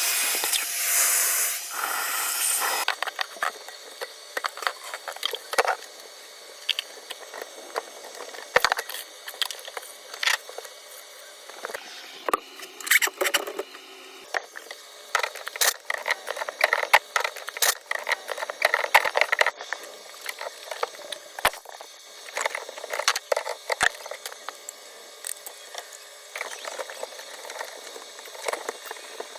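Plumbing tools working a clogged main drain line: a loud hissing rush for the first few seconds, then irregular clicks, knocks and scrapes of metal and tools.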